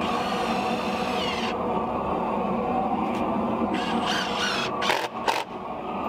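A steady mechanical drone runs underneath throughout. A hand-held power tool whines briefly twice, in the first second and a half and again about four seconds in, followed by a couple of sharp clicks near the end.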